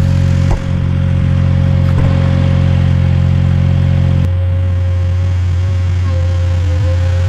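Ventrac 4520 compact tractor running steadily, with a thin steady whine above the engine. About four seconds in, the engine note changes suddenly, losing its higher tones, then carries on lower and steady.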